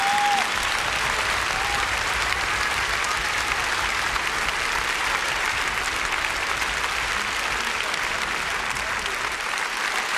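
Large concert audience applauding steadily, with a brief shout from the crowd just after the start.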